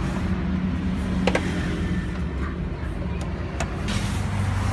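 A steady low mechanical hum, with a sharp metallic click about a second in and another past the middle as the motorcycle engine's side cover is handled and fitted.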